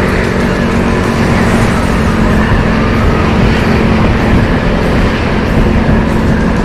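Motorcycle engine running steadily while riding, its drone holding one pitch, under continuous wind and road noise on the microphone.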